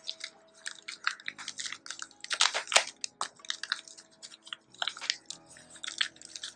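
Electrical tape being peeled off its roll and wound tightly around a plastic sandwich bag, with irregular crackling and crinkling, loudest about two and a half seconds in.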